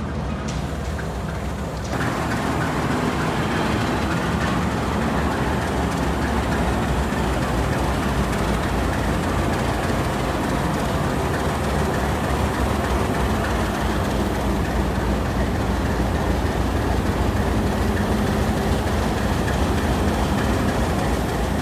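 Diesel locomotive engine running with a steady low rumble, growing louder about two seconds in and then holding steady.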